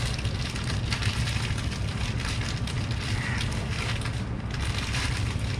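Plastic bag crinkling and crackling as it is handled, over a steady low rumble.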